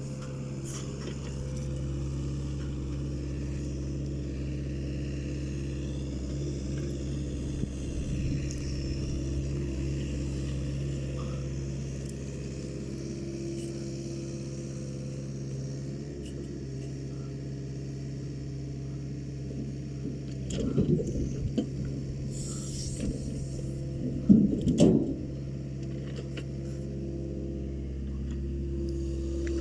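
Takeuchi excavator's diesel engine running steadily while loading logs, with two short bursts of heavy knocks about twenty and twenty-five seconds in, the second the loudest.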